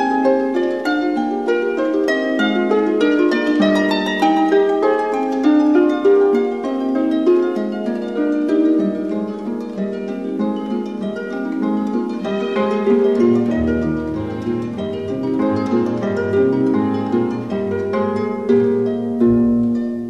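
Background music played on harp: a running stream of quick plucked notes. About two-thirds of the way through, lower bass notes join in.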